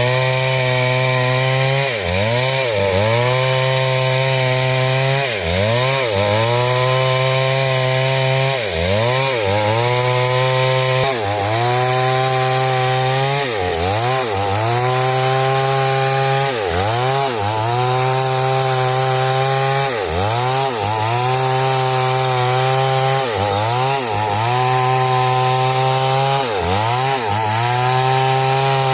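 Chainsaw running at high speed while cutting through hard coconut wood. Its pitch sags and recovers about every three seconds as the chain bites and the engine bogs under load.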